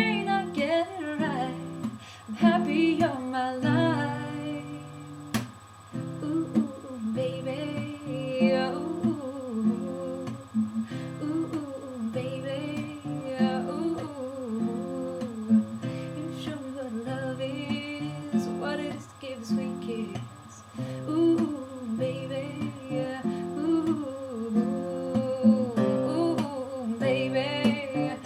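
Acoustic guitar music, picked and strummed, with a wordless vocal line over it.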